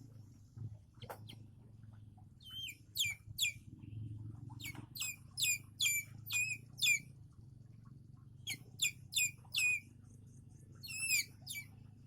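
Eagle chick calling: sharp, high cheeps that each slide steeply downward, coming in runs of three to six with short pauses between runs.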